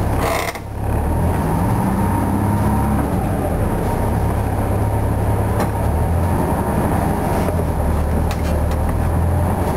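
Detroit Diesel 8V71 two-stroke V8 of a 1972 Flxible New Look bus running as the bus drives, heard from inside the cabin: a steady low drone whose higher note shifts pitch a couple of times, with a few light rattles in the second half.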